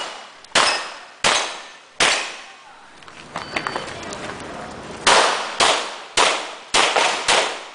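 Handgun shots fired in a practical shooting stage, each with a short echoing tail: three shots about two thirds of a second apart, a pause of about three seconds with only faint clicks, then a quicker string of six shots.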